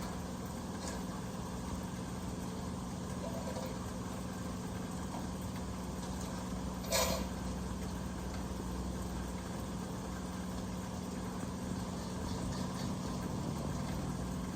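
Steady rain falling, with a low steady hum underneath and one sharp knock about seven seconds in.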